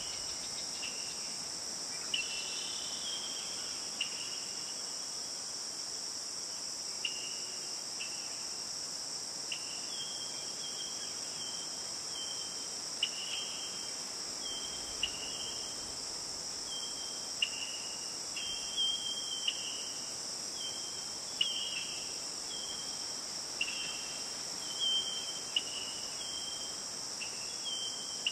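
Steady high-pitched drone of an insect chorus in a forest, with short, high chirping calls dotted through it every second or so, some of them falling slightly in pitch.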